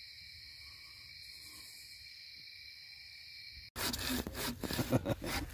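Insects calling in a steady high drone. About three and a half seconds in, the sound cuts off and a hand saw starts cutting through wood in quick, repeated strokes.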